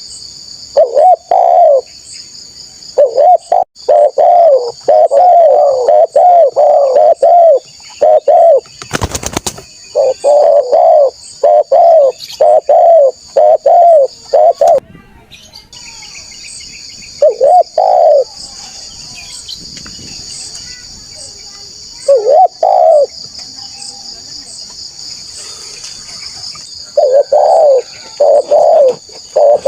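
Spotted dove cooing: series of short, repeated low coos in quick runs, falling silent for several seconds midway before starting again near the end. A steady high buzz runs underneath, and a single sharp click comes about nine seconds in.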